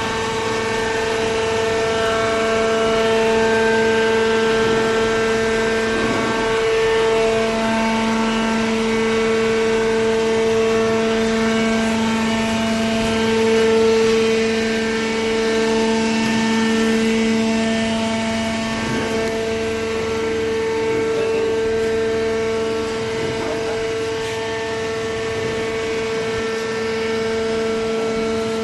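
Vertical cardboard baler's hydraulic power unit running with a steady, even whine.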